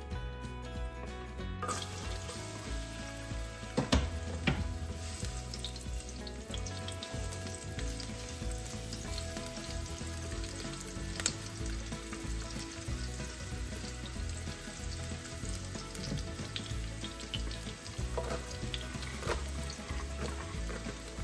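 Food sizzling and frying in a pan, starting a couple of seconds in, while it is stirred, with a few sharp knocks of the utensil against the pan.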